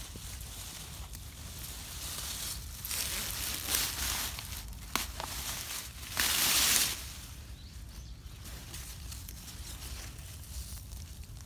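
Bur cucumber vines and leaves rustling and tearing as they are gathered and pulled up by hand, with a sharp snap about five seconds in. The loudest rustle, about six seconds in, comes as leaves brush close against the microphone.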